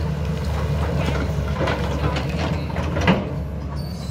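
Caterpillar hydraulic excavator's diesel engine running steadily, with scattered clanks and scrapes of the machine working rock and soil, and a louder knock about three seconds in.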